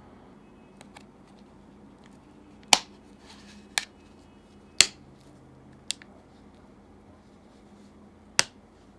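Five sharp clicks, unevenly spaced, as hands handle an iPhone 12 and its packaging or accessories; the second and fourth are quieter.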